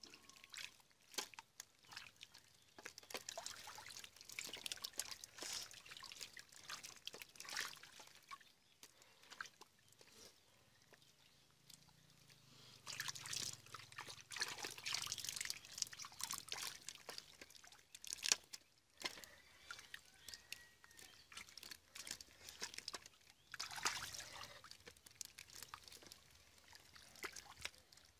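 Hands squelching and splashing through shallow muddy water, with water trickling and dripping. The splashes come in irregular bursts, busiest in the middle and again near the end.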